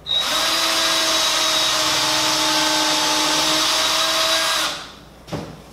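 Electric drill running at a steady speed for about four and a half seconds, then stopping, as a fastener or hole is driven into the chair's wood; a short bump follows near the end.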